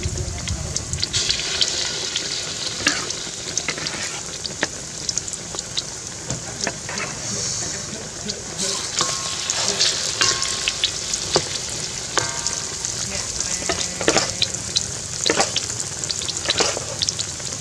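Chicken wings deep-frying in hot oil: a steady sizzle with frequent sharp pops and crackles.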